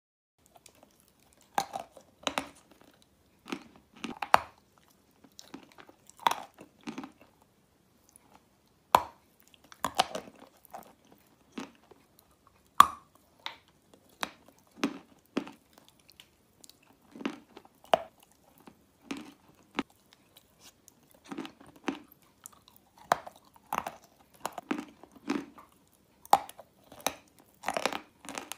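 Biting into and chewing white chalk coated in brown paste: sharp crunches and chewing at an irregular pace, some in quick clusters, with short quiet gaps between bites.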